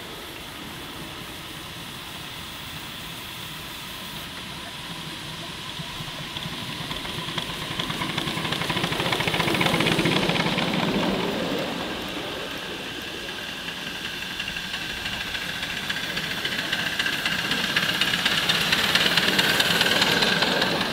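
Miniature steam locomotives on a ground-level track passing close by one after another, each rising to a peak of rumble and hiss from wheels and steam: the first about halfway through, the second near the end. A high wavering tone rings out as the second one passes.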